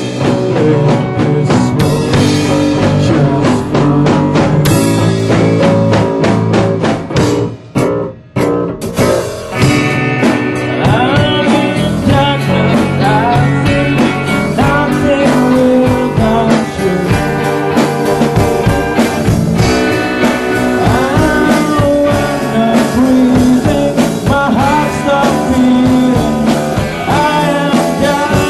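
Rock band playing live with electric guitar, drum kit and bass; the band drops out briefly about eight seconds in, then a voice sings over the full band.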